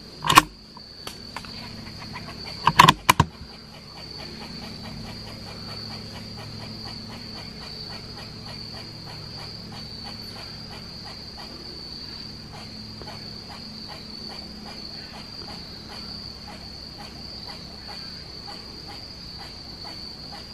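Steady high-pitched chorus of crickets, a continuous trill with a faint fast pulsing. Near the start, a few loud sharp clicks or knocks: one right at the start and a quick cluster of three about three seconds in.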